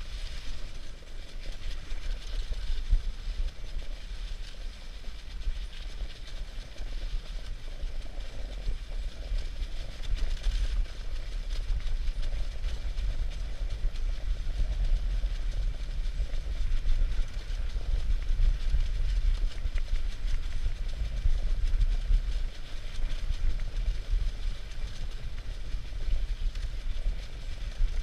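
Dogsled running fast over packed spring snow: the runners hiss and scrape while the sled rattles and rumbles, with a steady low buffeting of wind on the sled-mounted microphone.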